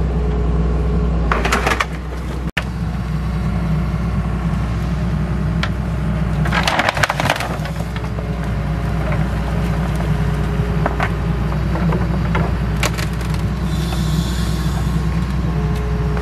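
Doosan excavator's diesel engine running steadily while its bucket lifts a wooden plank footbridge; the timber creaks and cracks several times, loudest in a cluster about seven seconds in.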